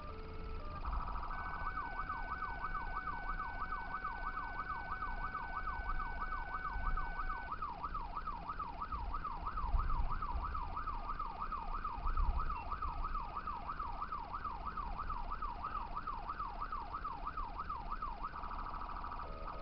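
Emergency vehicle's electronic siren in yelp mode, sweeping quickly up and down about three times a second. It has a brief faster warble about a second in and again near the end. Low road rumble from a moving car sits underneath, with a couple of thumps midway.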